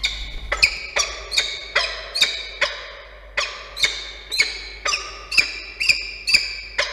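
Peregrine falcon giving a rapid series of sharp, ringing calls, a little over two a second, with a brief pause partway through.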